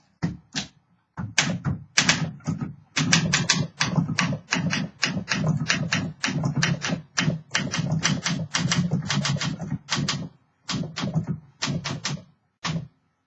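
Freshly refurbished 1957 Olympia SM3 DeLuxe manual typewriter being typed on: a fast run of key strikes, several a second, with short pauses between bursts, stopping shortly before the end.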